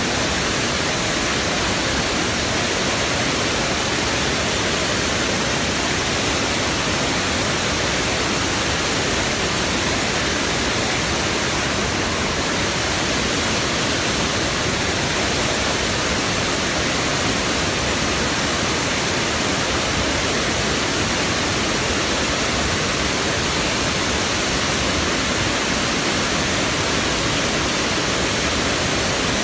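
Waterfall: a steady, unbroken rush of falling water, loud and even throughout.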